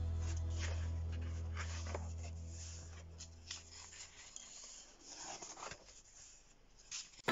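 Paper pages of a large colouring book being handled and turned, paper rubbing and rustling under the hands. A low held note of background music fades away over the first few seconds.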